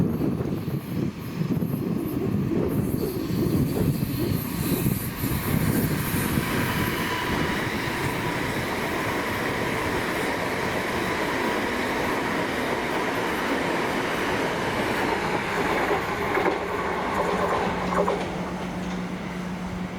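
Electric multiple-unit train running on the rails, with continuous wheel-and-rail rumble and a steady high squeal through the middle of the passage; a steady low hum comes in near the end.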